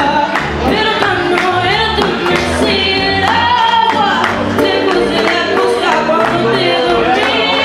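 A woman singing a folk song into a microphone, accompanied by electronic keyboard, acoustic guitar and a hand drum keeping a steady beat.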